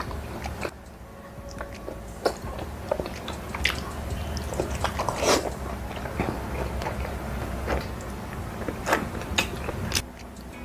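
Close-miked eating: biting and chewing, with irregular sharp, crunchy clicks and wet mouth sounds over a low steady hum.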